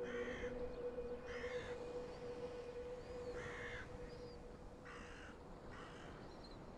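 A crow cawing, about five short harsh calls spaced a second or two apart, with a few faint higher bird chirps. A held low music note fades out underneath.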